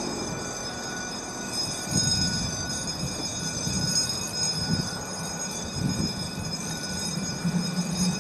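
Train running out of sight: a steady high whine over a low, uneven rumble that swells a few times.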